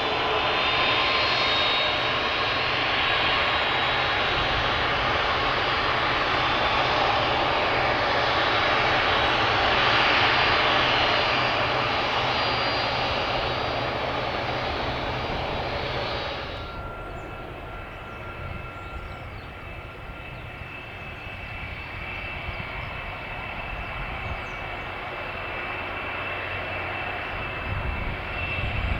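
Boeing 747-400 freighter's four jet engines, heard from a distance, swelling to a peak about ten seconds in. A little past halfway the sound drops suddenly to a quieter, steady engine noise with a thin whine.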